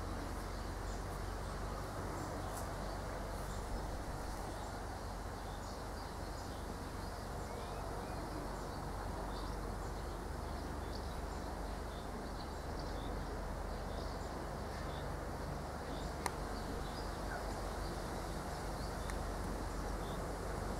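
Quiet countryside ambience: a steady low background noise with faint, scattered high chirps, and a single sharp tick about three-quarters of the way through.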